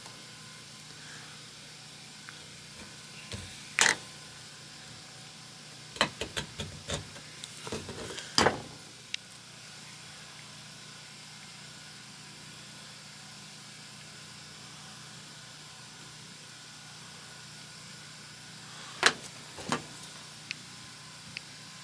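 Scattered short clicks and rustles of tape and tools being handled while a piece of butyl roof repair tape is traced and trimmed, in clusters with long quiet stretches between, over a steady faint hum.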